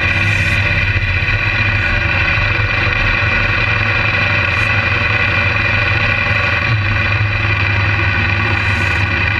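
Many off-road motorcycle engines running together at low speed: a loud, steady drone without clear revving.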